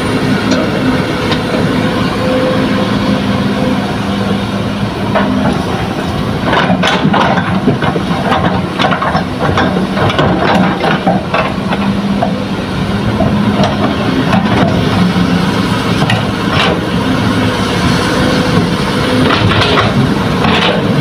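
Hitachi hydraulic excavator's diesel engine running steadily while it loads fill dirt into a dump truck. From about six seconds in there are stretches of rattling clatter as soil and clods drop into the truck's steel bed.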